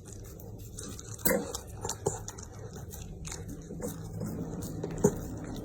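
A dog chewing food, with a few sharp crunches, the loudest near the end.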